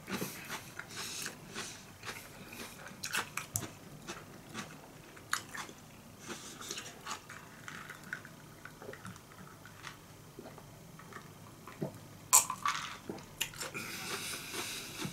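Close-up chewing of a raw cucumber topped with miso, with scattered crisp crunches as it is bitten down. A single sharp click comes about three-quarters of the way through.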